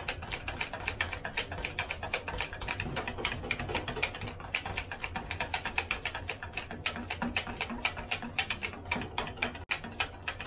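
Takoyaki batter being beaten by hand in a mixing bowl, the utensil clicking against the bowl's side in a fast, even rhythm of about five or six strokes a second. Background music plays underneath.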